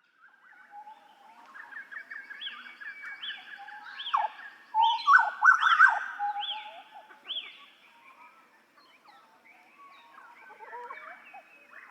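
Butcherbird (jagal Papua) singing a mix of whistled and chattering notes, with a run of about seven repeated falling notes a little under a second apart. The song is loudest about five to six seconds in and quieter after that.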